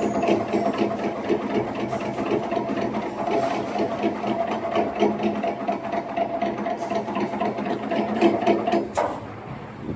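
CNC channel letter bending machine running: a rapid, continuous mechanical clatter over a steady hum that cuts off about nine seconds in.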